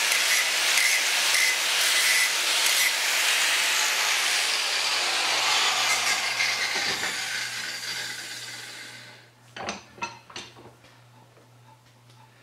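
Angle grinder with an abrasive disc grinding a metal pin held in a bench vise, a loud steady hiss. About three seconds in the grinding stops and the grinder winds down over several seconds, followed by a few light clicks near the end.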